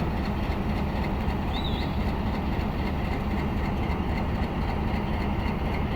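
Japanese-built HBU-20 diesel-electric locomotive idling steadily with a low, even engine hum.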